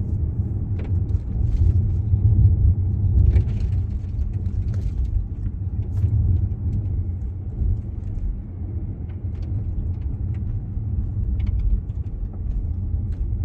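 Road and engine noise inside a moving car: a steady low rumble with light rattles and ticks now and then.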